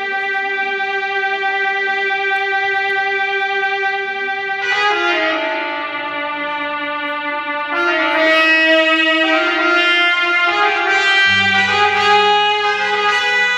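Arabic song intro on a synthesizer with a brass-like lead: one long held note, then a winding, sliding melody from about five seconds in, with a low bass note coming in near the end.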